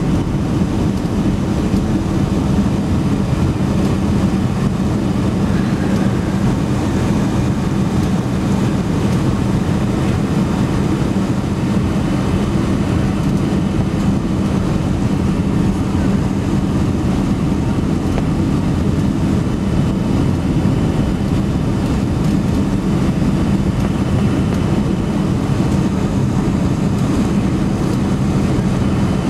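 Cabin noise inside a Boeing 767-300 airliner on final approach with flaps extended: the steady rush of air and engine noise with a steady low hum, unchanging throughout.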